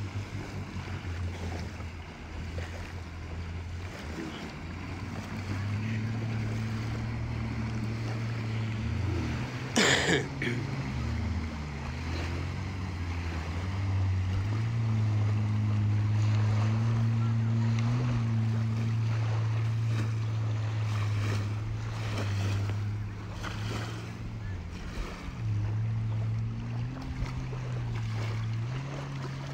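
Jet ski engine droning steadily as the watercraft cruises and turns, its pitch holding and then shifting up or down every few seconds, over splashing water and wind on the microphone. A brief loud noise cuts in about ten seconds in.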